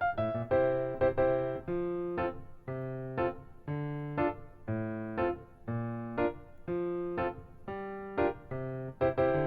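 Background music: gentle piano chords over bass notes in a steady rhythm.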